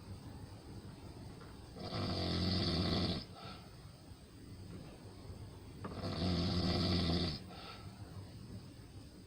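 Snoring in sleep: two long snores about four seconds apart, each lasting over a second, with a quieter stretch between them.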